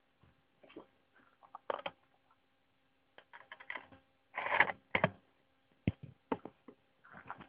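Irregular mechanical clicks and knocks, with a louder rattling, rustling burst about four and a half seconds in, like handling noise.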